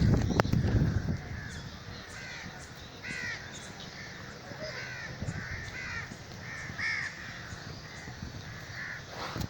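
Birds calling: a string of short, harsh, repeated calls, about one or two a second. A loud low rumbling noise fades out in the first second.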